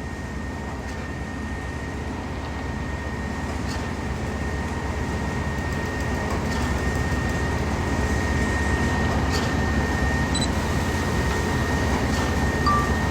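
Concrete pump truck's diesel engine running steadily under load while pumping concrete: a low, pulsing rumble with a steady high whine over it, growing gradually louder.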